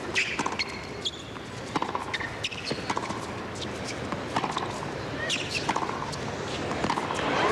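Tennis rally on a hard court: the ball struck by rackets and bouncing, sharp pops about once a second.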